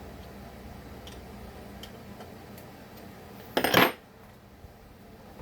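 A few faint small clicks of hand-tool work, then a brief, loud metallic clatter about three and a half seconds in, as a metal tool or part is set down hard.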